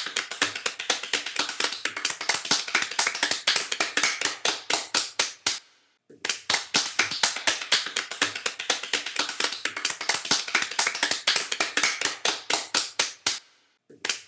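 Hands clapping quickly and steadily, several claps a second, in two long runs with a brief stop between them and a third run starting near the end.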